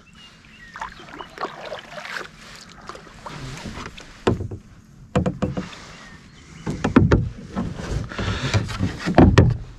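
Paddling an Ascend 133x kayak: the paddle blades splash in the water, and the paddle and gear knock irregularly against the hull. The knocks come more often and louder in the second half.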